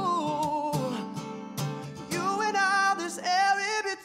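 A male voice singing long, sliding held notes, accompanied by an acoustic guitar.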